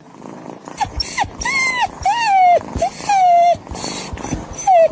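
A pet's short whining cries, about seven in a row, each rising and then falling in pitch.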